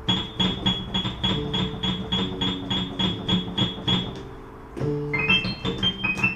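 Background keyboard music: a repeated high piano-like note about four times a second over lower sustained chords, shifting to a new note pattern about five seconds in.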